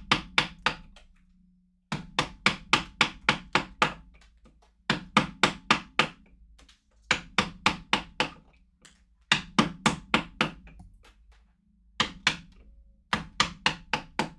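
Mallet striking a carving tool into a wood block in quick runs of about six to nine sharp blows, roughly four a second, with pauses of about a second between runs.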